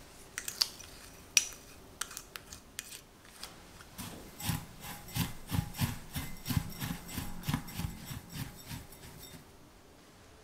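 Silicone spatula stirring graham cracker crumbs and orange-zest sugar in a glass bowl, in rhythmic scraping strokes about two a second, each with a soft thud against the glass. The stirring stops shortly before the end. Before it start, a few sharp clicks of utensils on the bowls.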